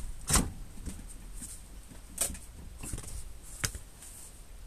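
A few sharp knocks and clicks as the mobility scooter's small front wheel is slid off its axle stub and handled. The loudest knock comes about a third of a second in, with three lighter ones in the second half.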